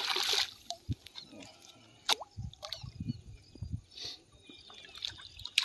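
Water splashing briefly at the surface where a hooked fish is being landed, then scattered small drips, plops and knocks.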